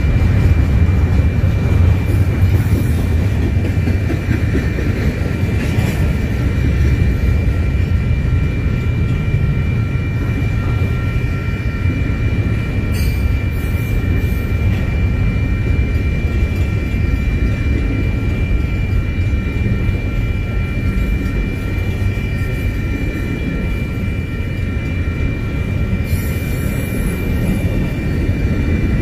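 Double-stack intermodal well cars rolling past: a steady, loud rumble of wheels on rail, with a steady high-pitched whine held over it and brief rattles twice.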